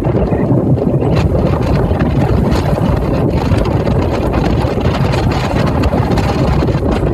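Strong wind buffeting the microphone, a loud steady rumble.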